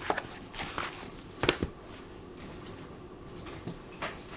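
An old hardback book being handled on a cutting mat: pages rustling, then the book closed and set aside. A few short knocks and rustles, the loudest about a second and a half in and another near the end.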